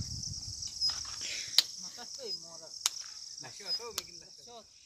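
Insects chirring steadily at a high pitch, with a few sharp clicks and some short pitched calls in the second half.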